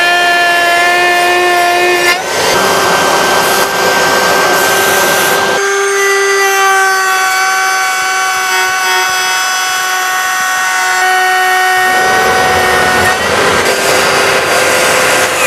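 Cordless brushless trim router (Jupiter JRT-18P) running at high speed with a steady whine while a straight bit cuts grooves in wood. The cutting adds a rougher noise over the whine for a few seconds at a time; for about six seconds in the middle the bit spins free and only the whine is left.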